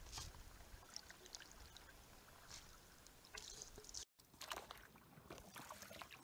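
Canoe paddles dipping in lake water: faint irregular splashes and water trickling off the blades, cut by a brief dropout about four seconds in.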